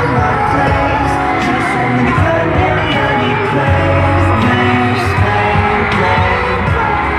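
Loud pop music with singing, a live concert performance.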